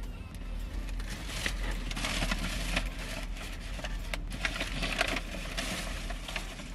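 Crunching and crackling of a fried chicken sandwich being bitten and chewed, with its paper sandwich bag crinkling in the hands.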